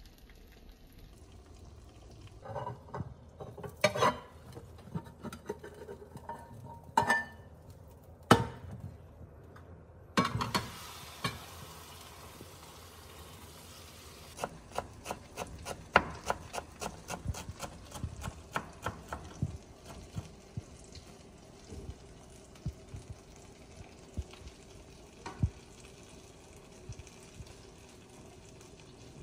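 A few sharp knocks of kitchen utensils, then food sizzling in a frying pan from about ten seconds in, while a spatula stirs and scrapes it in quick, irregular clicks.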